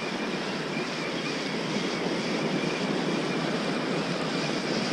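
Small waves breaking and washing up a sandy beach, a steady surf noise, with wind buffeting the microphone.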